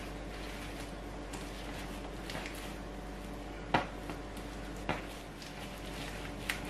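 Hands kneading bread dough on a wooden tabletop: soft brushing strokes and a few light knocks as hand and dough hit the board, the sharpest a little past halfway through. A steady low hum runs underneath.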